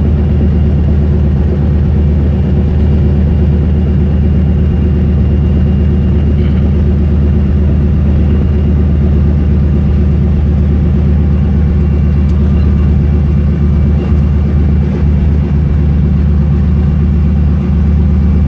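Single-engine light aircraft's piston engine and propeller running steadily at low power while the plane taxis on the ground, heard from inside the cockpit as a loud, even drone with a low pulsing hum.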